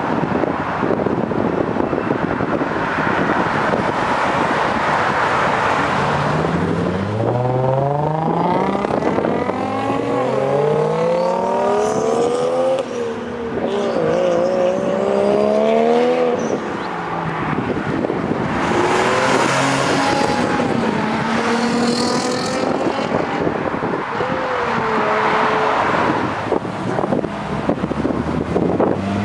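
Cars accelerating away one after another, engines revving with their pitch climbing, dropping back and climbing again several times. Heavy wind noise buffets the microphone between the passes.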